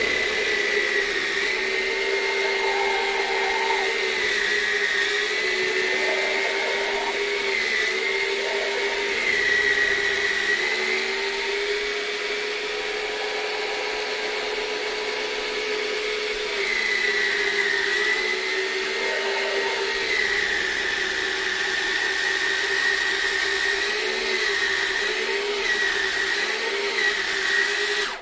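Yonanas frozen-dessert maker's motor whining steadily as frozen bananas and berries are pushed down its chute with the plunger, its pitch dipping briefly now and then. The motor cuts off suddenly at the end.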